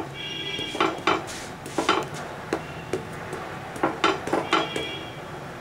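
Wooden spatula knocking and scraping on a flat nonstick pan while pressing a cooking chapati. There are about ten irregular knocks, and a few of them leave a short metallic ring from the pan.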